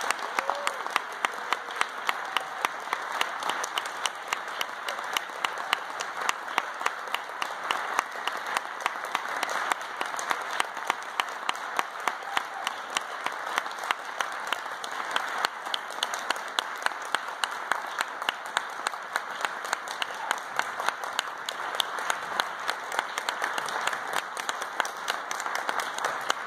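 Audience applauding steadily, with one close pair of hands standing out as a regular run of sharp claps over the general clapping.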